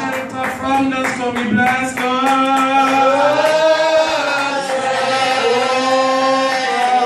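A man singing a slow worship song solo, holding long notes and gliding between them. A run of sharp taps sounds over the first two seconds.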